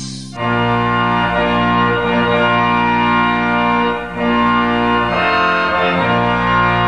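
Organ music playing slow, sustained chords that change every second or two, beginning about half a second in.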